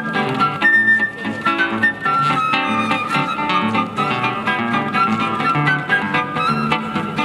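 Brazilian choro played live by a flute and guitar duo: the flute carries a quick melody of short notes over plucked guitar bass lines and chords.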